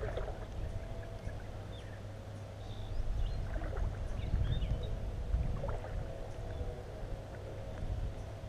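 Wind rumbling on the microphone, uneven and gusting, with a few faint short bird calls now and then.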